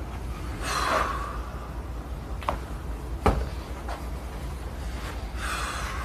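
A breathy exhale about a second in, then three short sharp cracks over the next few seconds, the middle one the loudest: joints popping during a chiropractic adjustment. Another breathy sound comes near the end.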